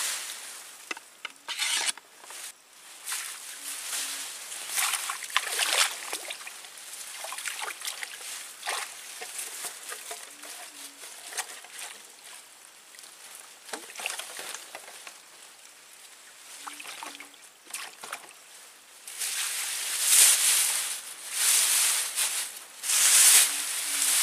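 Shallow stream water sloshing and splashing in irregular strokes, heavier and louder in the last five seconds.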